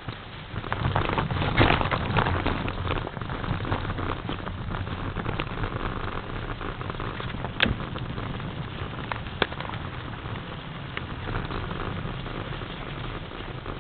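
Mountain bike riding over a snow-covered trail: a steady crackling rush of tyres on snow and the bike rattling over the ground, with two sharp knocks about seven and a half and nine and a half seconds in.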